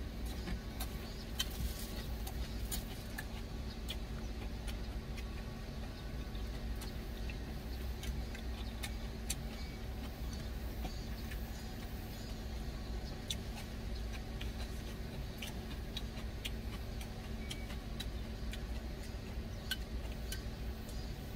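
Steady low hum of an idling truck engine heard inside the cab, with scattered small clicks of a plastic spoon against a plastic food container and quiet chewing.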